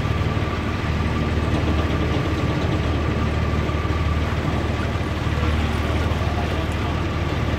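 Engine of a Mekong passenger riverboat running steadily under way, a low even drone with a thin steady whine above it and a constant hiss of water and wind.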